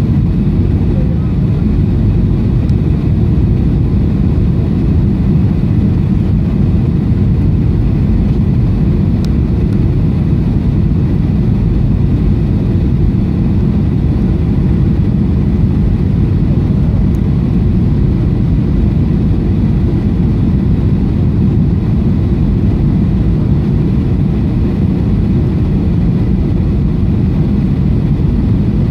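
Cabin noise inside a Boeing 737-700 on approach, heard at a window seat over the wing: a steady deep roar of airflow and CFM56-7 turbofan engines, with faint steady whine tones above it.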